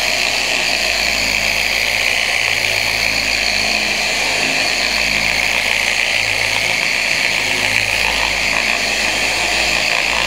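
Electric car polisher with a foam pad running steadily against car paintwork, a continuous motor whir and pad hum.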